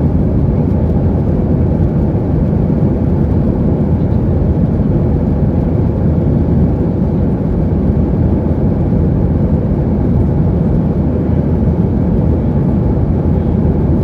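Boeing 737-800's CFM56 engines at takeoff thrust, heard as a loud, steady roar inside the passenger cabin.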